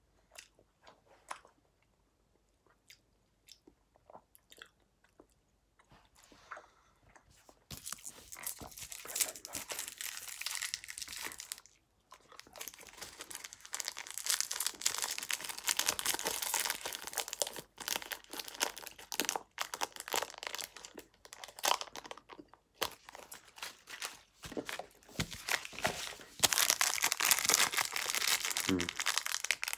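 Crunching and crinkling close to the microphone, as of sweets being unwrapped and eaten: a few scattered clicks at first, then continuous from about eight seconds in, loudest near the end.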